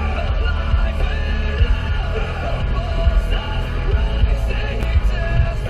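Rock music with loud, shouted singing over a heavy bass beat.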